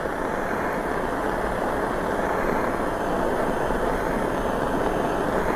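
Jeweller's torch flame hissing steadily while it heats a ring and its flux up to soldering temperature.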